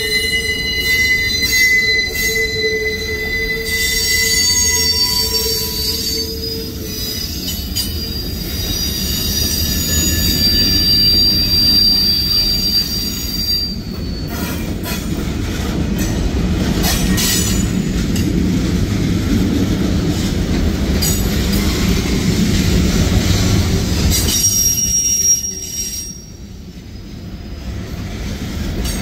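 Freight train cars rolling slowly past, their wheels squealing in several high, steady tones over a low rumble and clatter from the trucks. The squeal fades about halfway through and returns briefly near the end. The uploader suspects the brakes were left on.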